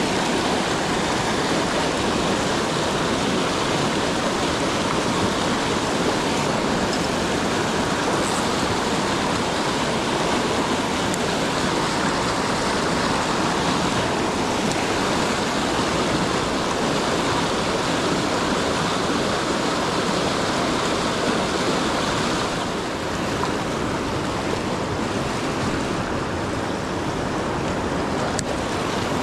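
Fast mountain river rapids rushing over boulders close by, a steady loud rush of white water that eases slightly for the last several seconds.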